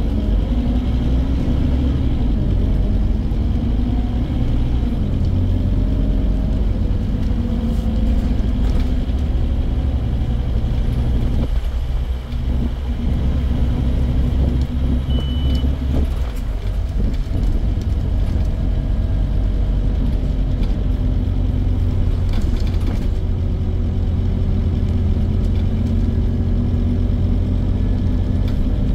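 Scania N230 bus's diesel engine running under way, heard on board, its note rising and falling as the bus drives, with a short dip about twelve seconds in. A brief high beep sounds about fifteen seconds in.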